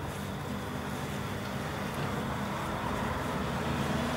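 Steady low hum under an even rushing noise, growing slightly louder.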